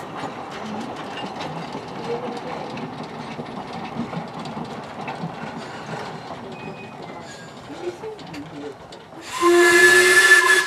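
Narrow-gauge steam train running on the rails with a steady clatter of small clicks, then a loud steam whistle blast of about a second and a half near the end.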